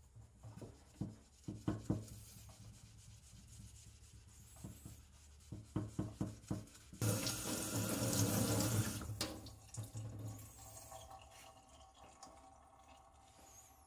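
A sponge scrubbing a steel kitchen knife blade with cream cleanser in a stainless steel sink, in runs of short quick strokes. About seven seconds in, the tap runs for about two seconds as the blade is rinsed, then shuts off.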